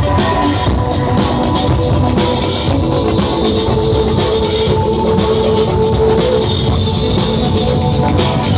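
Loud rock music with a drum kit and guitar, playing steadily.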